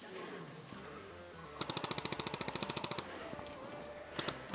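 An airsoft gun fires one rapid full-auto burst of roughly eighteen shots, about thirteen a second, lasting about a second and a half and starting about a second and a half in. A couple of single sharp clicks follow near the end.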